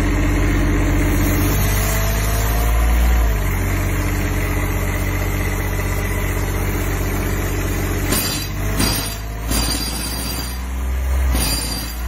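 Kubota diesel engine of a Denyo portable air compressor running steadily, its tone shifting slightly a couple of seconds in. Short rushes of noise come in near the end.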